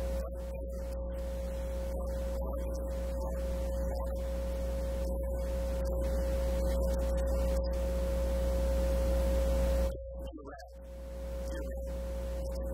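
Steady electrical hum on the recording: a low mains-type buzz with a constant mid-pitched tone above it and no speech coming through. It dips briefly about ten seconds in.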